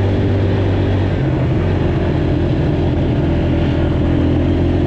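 Small off-road engine running steadily under way, its pitch stepping up about a second in.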